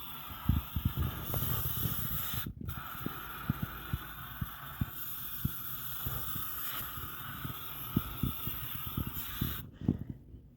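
Aerosol stainless steel cleaner and polish spraying in a steady hiss onto a stainless steel grill, with irregular low knocks and rubs of handling. The hiss breaks off briefly after a couple of seconds and stops near the end.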